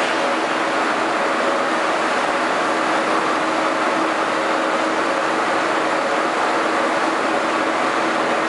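Steady hydraulic machinery noise with a faint constant hum, from the hydraulic system working the cylinder that folds a steel spud upright on an amphibious excavator pontoon.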